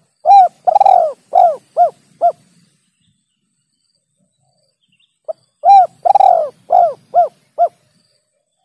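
Spotted dove (tekukur) cooing: two phrases of about six arched coos each, the second starting about five seconds in. Each phrase opens with a short note, and its second and third coos are the loudest and longest. This is a dove lure call recording.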